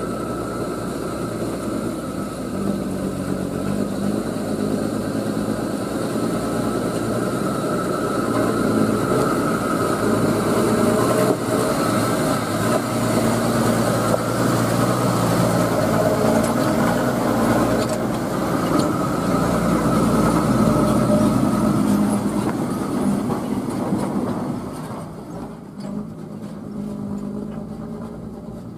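Old Toyota dump truck's engine running as it drives by on a gravel track, getting louder as it nears and passes, then dropping off near the end as it moves away.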